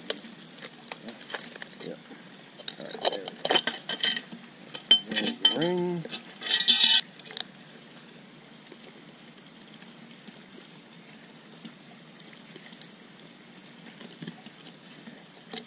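Metal scraping and clinking as a screwdriver works at a stainless steel pool light fixture to pry off its lens ring. Clusters of sharp clicks come from about three to seven seconds in, the loudest a short scrape near seven seconds, then only faint background.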